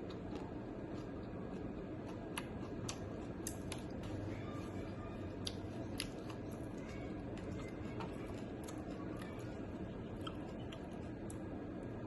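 Eating at close range: food being chewed, with scattered sharp, irregular clicks over a steady low background hum.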